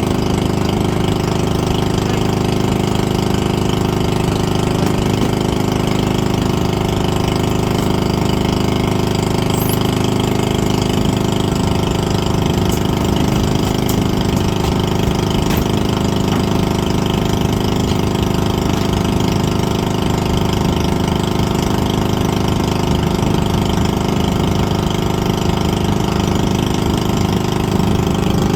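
Boat engine running steadily at a constant speed, its pitch unchanging.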